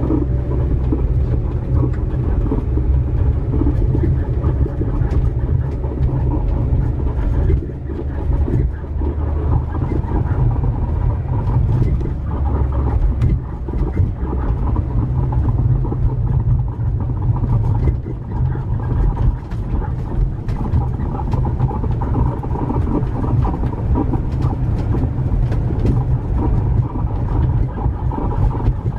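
Registro Owl camper driving, heard from inside the cabin: steady road rumble with a loud, busy creaking and squeaking from under the floor, which turned out to come from the rear helper leaf spring.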